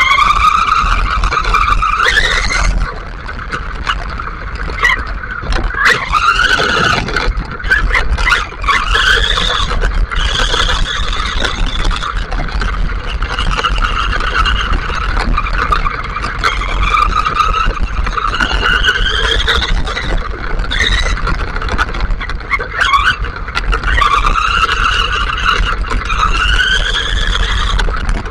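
The electric motor and drivetrain of a WLtoys 4x4 RC buggy whine as it drives, the pitch rising and falling again and again with the throttle. Underneath runs a steady rumble of the tyres on a wet sand-and-gravel road.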